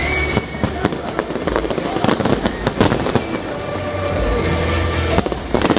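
Fireworks display going off: a run of sharp bangs and crackles, some close together, over a continuous rumble, with music playing alongside.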